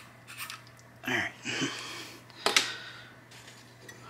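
Handling noise of a naked camera and its plastic mount on a drone: light scrapes and rubbing, with one sharp click about two and a half seconds in.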